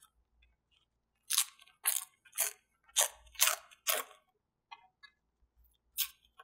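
Paper rustling and crinkling as small cut-out collage pieces are handled: about seven short crisp rustles in quick succession, then one more near the end.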